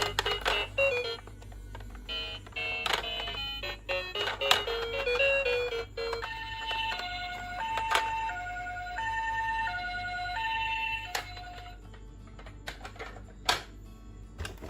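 Toy ambulance minicar's electronic two-tone siren, alternating between a higher and a lower beep at a steady pace for about five seconds from about six seconds in. Before it comes a tinny electronic tune, and clicks and knocks of the plastic toy run through, with one sharp knock near the end.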